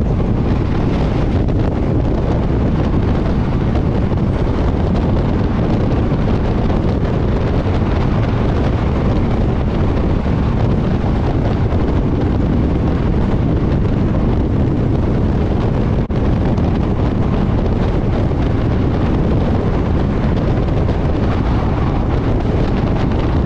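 Loud, steady rush of wind buffeting a microphone held out of a passenger train running at speed, over the low rumble of the train on the track.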